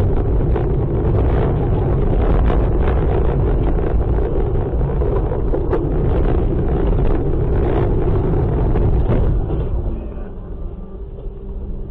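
Car driving on a wet road in rain, heard from inside the cabin: steady road and engine rumble with raindrops ticking on the windshield. The noise drops about ten seconds in, leaving a lower, steadier engine hum.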